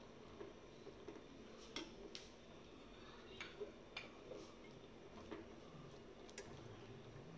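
A steel spoon stirring cashew nuts in a nonstick kadai, giving a few faint, sharp clicks against the pan.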